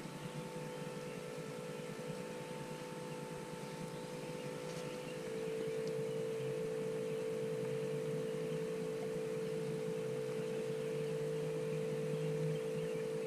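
Steady mechanical whine holding one tone, which gets louder about five seconds in and then stays level.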